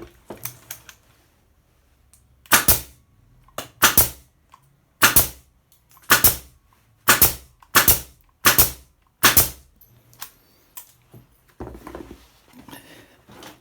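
Makute pneumatic nail gun firing about eight nails in a row, each shot a sharp crack roughly a second apart.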